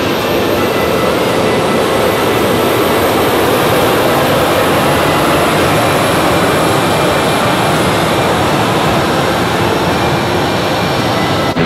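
Jet engines of a Boeing 767 airliner at low taxi power: a steady, loud rush with a thin high whine over it.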